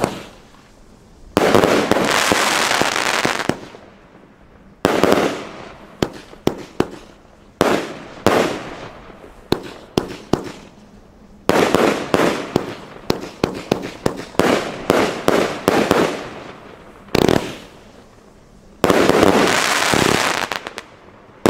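Compound firework battery firing: sharp shell reports, each followed by dense crackling from splitting stars. A string of quick single shots partway through gives way to long, dense crackling volleys.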